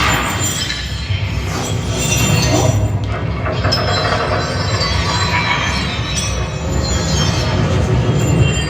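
Yamaha 3.1-channel home theater system playing back a Dolby demo soundtrack: a continuous deep rumble with high metallic ringing and music over it.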